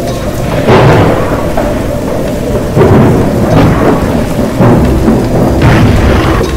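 Thunderstorm: steady heavy rain with loud rolls of thunder, swelling about a second in, near three seconds and again near five seconds.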